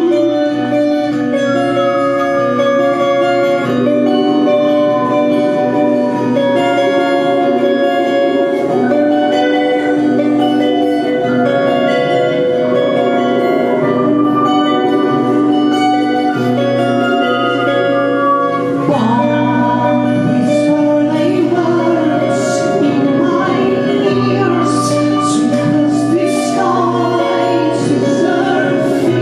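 Live band performing an electro-acoustic song: sustained melodic notes with a gliding line and some singing, and sharp percussion hits coming in about two-thirds of the way through.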